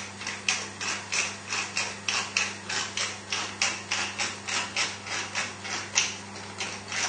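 Hand-twisted seasoning mill grinding salt or pepper in a steady rhythm, about three crunchy clicks a second.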